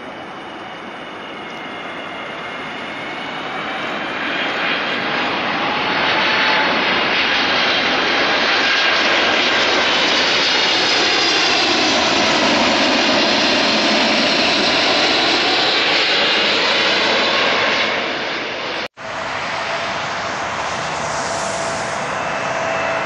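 Boeing 777 jet airliner on final approach passing low overhead: its engine rush grows to a loud roar with whining tones that sweep down in pitch as it goes by. An abrupt cut about 19 s in brings the quieter, steady whine of another twin-engine jet approaching.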